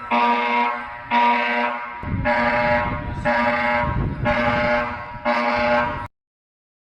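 Emergency alert (EAS-style) alarm tone: a harsh, horn-like buzz sounding in repeated blasts about once a second, six times, then cutting off abruptly about six seconds in.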